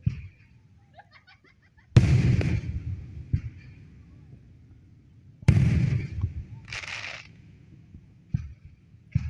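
Fireworks shells exploding: two loud booms about three and a half seconds apart, each fading over about a second, with a few smaller pops between and after.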